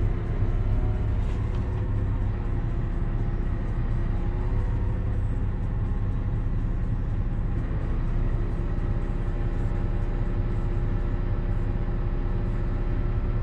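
Tractor diesel engine running steadily at constant revs, left going so the turbocharger can cool down.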